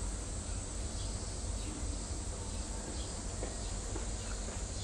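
Steady outdoor background noise: a constant low rumble with an even hiss above it and a few faint ticks.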